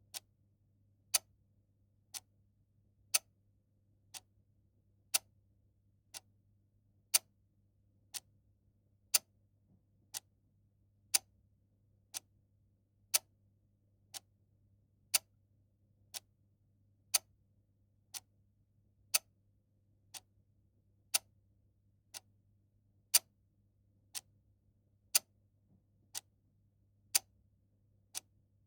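A clock ticking steadily at about one tick a second, the ticks alternating louder and softer in a tick-tock pattern.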